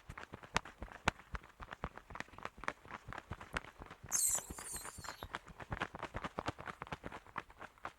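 Cartoon bat sound effect: rapid, irregular wing flaps, several a second, with one short high-pitched squeal about four seconds in.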